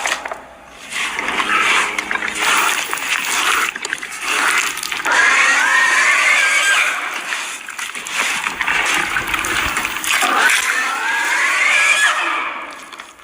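Big, reverberant monster screeches: a series of long, shrill cries whose pitch wavers and glides up and down, with a loud one about five seconds in and another rising one near the end.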